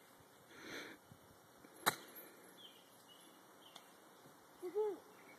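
A golf club striking a ball on a chip shot from grass, one sharp click about two seconds in. Near the end come two short rising-and-falling calls.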